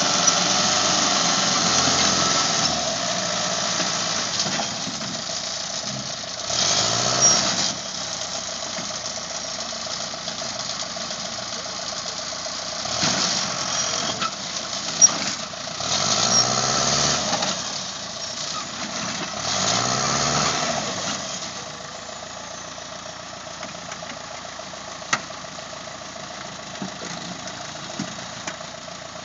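Vehicle engines running and revving several times, each rev rising and falling, with a couple of sharp knocks between.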